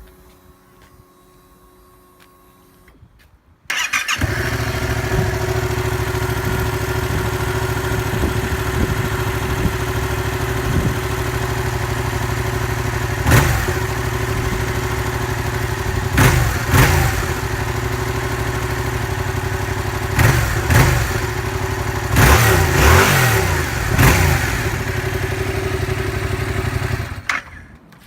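Yamaha MT-07's 689 cc parallel-twin engine on its stock exhaust, started about four seconds in and idling steadily. It is revved in short blips several times, in a quick cluster near the end, then switched off just before the end.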